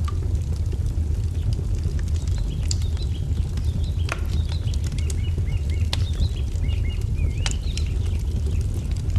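Wood fire crackling, with scattered sharp pops over a steady low rumble. A small songbird chirps in quick, short phrases from about two and a half seconds in until near the end.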